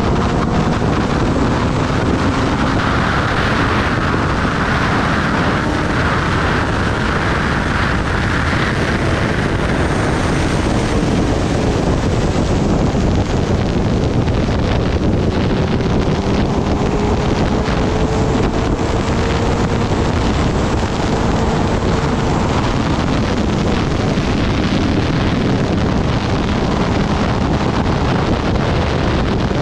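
Heavy wind rush on the microphone over the Kawasaki Ninja ZX-10R's inline-four engine at highway speed. The engine note sits faint beneath the wind and rises slowly now and then.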